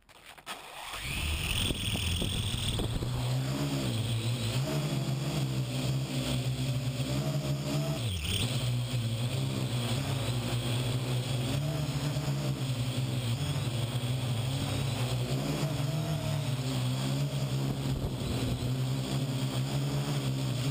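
Parrot AR.Drone quadcopter's four rotors spinning up about a second in, then a steady buzzing hum in flight, heard from a camera mounted on the drone. The pitch wavers a little and dips briefly a little before halfway.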